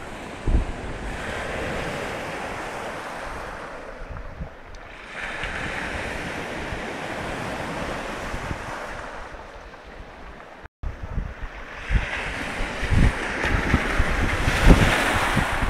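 Baltic Sea waves washing and breaking against the pier and shore, swelling and ebbing every few seconds, with gusts of wind buffeting the microphone. The sound cuts out for a split second about ten seconds in.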